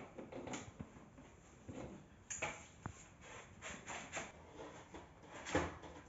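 Scattered light knocks and clicks with the vacuum cleaner's motor off, typical of its plastic wand and floor nozzle being handled and set down on a hard floor. The loudest knock comes near the end.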